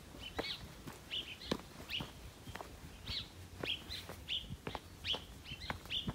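A small bird chirping: a run of short, high chirps about two a second, with a hiker's footsteps on the trail.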